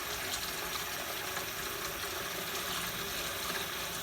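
Water running steadily from a tap into a sink, with an even rushing hiss.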